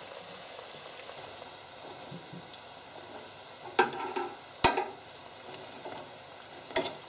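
Churros deep-frying in hot oil in an electric deep fryer: a steady sizzle. A few sharp clicks, about four seconds in and near the end, as metal tongs knock the wire frying basket while turning them.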